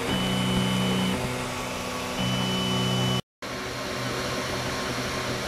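Flsun i3 3D printer running: its stepper motors give off steady pitched whines that start and stop about every second as the print head moves, over a steady fan hum. The sound drops out briefly about three seconds in.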